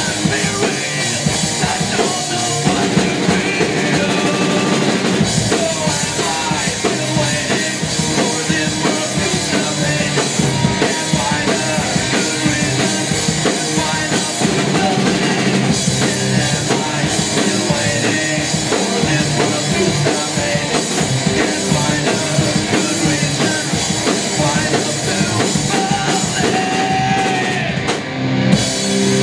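Live punk rock band playing a fast song on distorted electric guitars, bass guitar and drum kit. The music briefly drops near the end.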